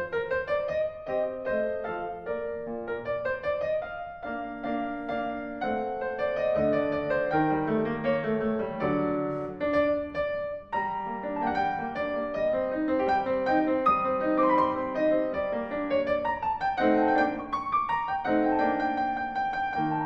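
Background piano music: a continuous run of notes over lower chords.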